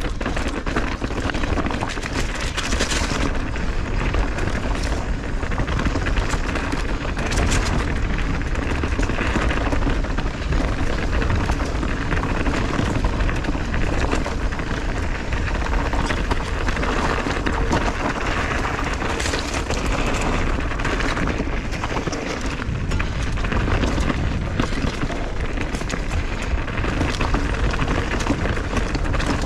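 Mountain bike descending a downhill trail at speed: wind rumbling over the camera microphone, tyres rolling on dirt, and frequent short knocks and rattles from the bike over bumps.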